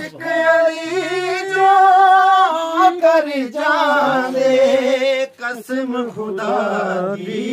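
A man singing a Punjabi devotional kalam in praise of Ali without instruments, drawing out long held notes that step down in pitch.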